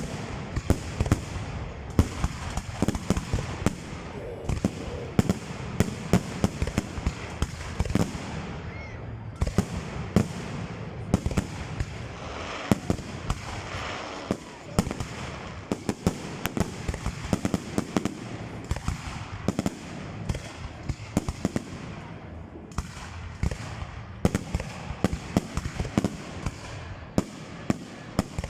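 Fireworks display: a dense, continuous run of sharp bangs from bursting shells, several a second, with crackling between them.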